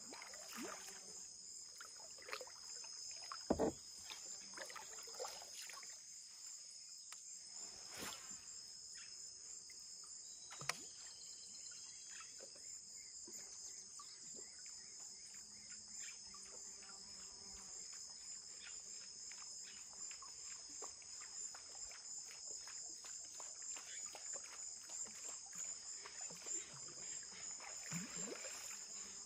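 A steady, high-pitched chorus of insects, finely pulsing. Scattered light knocks and clicks cut across it, the loudest about three and a half seconds in.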